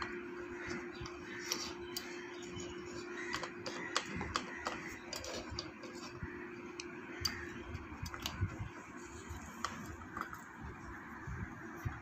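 Small clicks and knocks of hands working a bicycle floor pump and its new plastic hose, pushing the hose into the pump's base. A steady low hum sounds underneath and stops about two-thirds of the way through.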